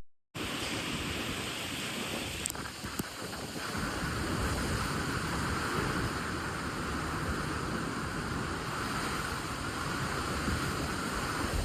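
Typhoon wind blowing as a steady rushing noise, with two brief clicks about two and a half and three seconds in.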